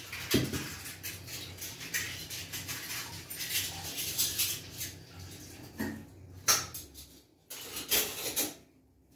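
Fingers scraping dry paprika spice mix out of a ceramic bowl and sprinkling it onto slabs of pork fat on a plastic sheet: a run of light scratches and rustles, with a few sharper clicks in the second half.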